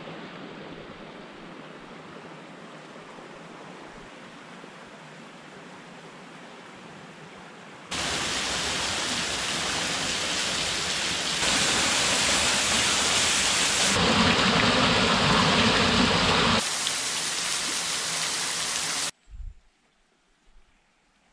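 Small waterfall pouring onto rocks: a loud, steady rush of falling water that starts abruptly about eight seconds in and jumps in loudness and tone several times, then cuts off shortly before the end. Before it, a quieter steady hiss of outdoor ambience.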